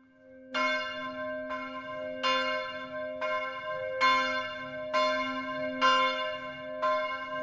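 Church bells ringing, a strike roughly every second over a lingering hum, cutting off suddenly at the end.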